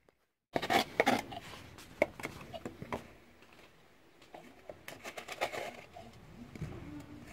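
Small knife scraping and cutting at a dried bottle-gourd shell: irregular scratches and sharp clicks, busiest in the first couple of seconds and again just past the middle.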